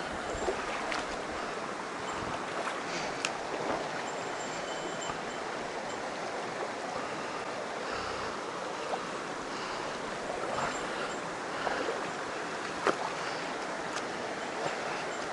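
Mountain stream water rushing steadily, with a few sharp clicks over it, the loudest about thirteen seconds in.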